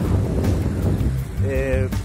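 Wind buffeting the microphone of a phone carried on a moving bicycle: a loud, rough rumble over background music, with a short sung or spoken voice near the end.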